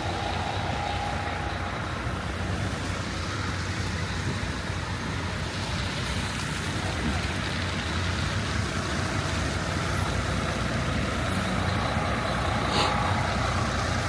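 Steady engine and road noise of a motor vehicle, a constant low hum under a hiss, with one short click near the end.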